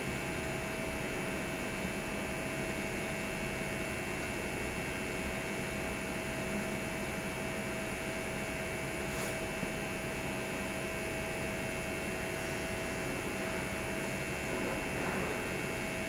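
TIG welding arc on thin-walled stainless steel sanitary pipe, a steady hiss with a constant hum.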